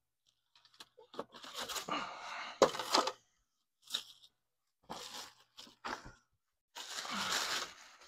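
Packaging handled while unboxing a portable fridge: the foam packing insert is pulled from the cardboard box and the plastic bag around the fridge crinkles. It comes as several short bursts of rustling and crunching.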